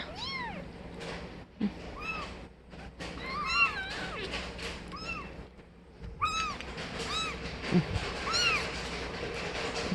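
Young kittens mewing: about nine short, high-pitched mews, each rising and falling in pitch, with a soft knock a little before 8 s.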